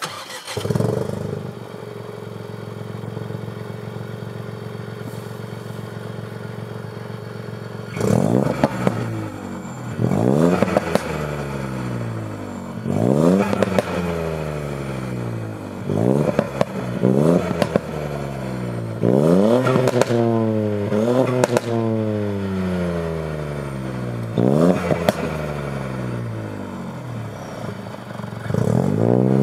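Ford Fiesta ST mk8's 1.5 EcoBoost three-cylinder engine, breathing through a downpipe with the gasoline particulate filter deleted, flares briefly about half a second in and then idles steadily. From about eight seconds in it is revved again and again, each rev rising and falling away, with crackles and pops as the revs drop.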